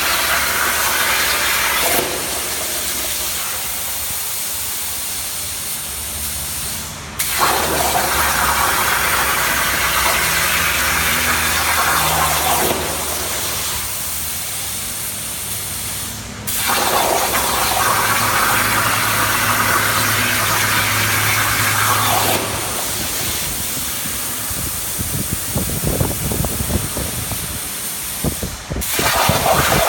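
CNC plasma cutter hissing loudly as it cuts. The hiss stops abruptly and restarts sharply about 7 s in, again about 16 s in and near the end, with a low hum underneath that shifts pitch in steps.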